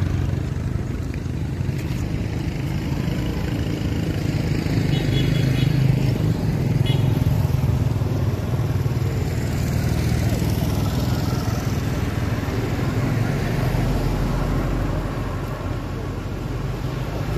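Motorbike and scooter traffic passing along a road, a steady engine drone.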